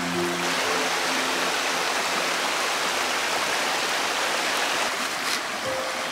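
Shallow rocky stream running over stones, a steady rush of water, with a few notes of background music in the first second or two and again near the end.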